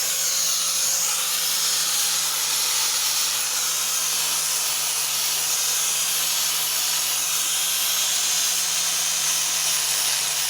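Steady hiss with a constant low hum underneath, like a machine running without a break; no speech.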